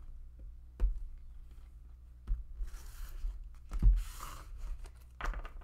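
Tarot cards being cut by hand and set down in stacks on a bare wooden table: a few light knocks as the stacks land, the loudest about four seconds in, with a soft rustle of cards sliding against each other in between.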